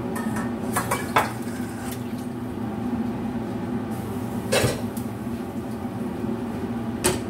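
Pots and pans knocking and clinking a few times: a couple of knocks about a second in, another in the middle and one near the end, over a steady low hum.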